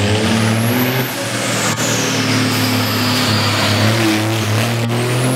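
Scania race truck's diesel engine revving hard at full throttle as the truck accelerates past, with a high whistle that climbs, then falls away slowly, and climbs again near the end.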